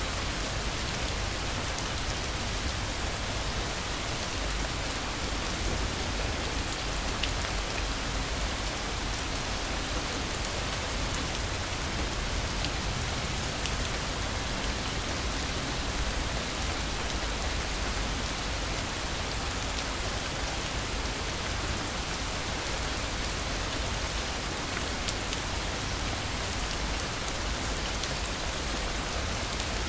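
Steady rain falling, an even hiss with a few scattered drop ticks.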